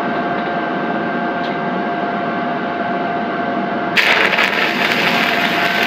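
Stick-welding arc from a 7016 electrode frying steadily with a steady hum, as a steel deck plate is tack-welded to a rib. About four seconds in, the sound turns abruptly louder, brighter and more crackly.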